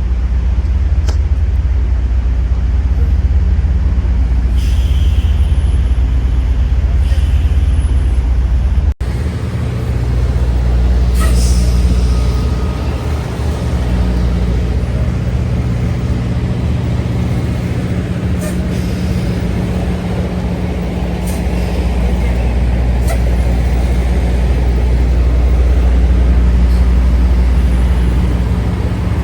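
Semi-truck diesel engine running steadily, with a few short hisses of air from the air brakes.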